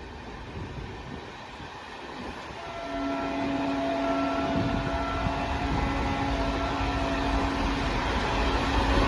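Horn of an Indian Railways MEMU electric multiple unit sounding one long steady blast, starting about three seconds in and held for about six seconds. Under it the low rumble of the train grows louder.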